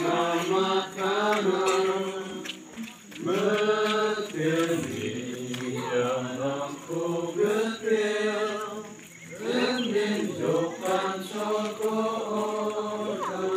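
A group of people singing together unaccompanied, a slow song in long held notes with short pauses between phrases.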